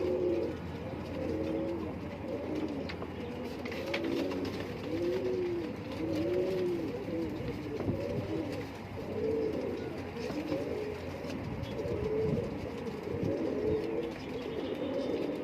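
Several domestic pigeons cooing together, their short rising-and-falling coos overlapping one after another.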